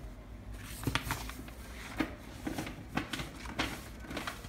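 Scattered light clicks and knocks of kitchen utensils against a ceramic mixing bowl of thick batter, coming irregularly from about a second in.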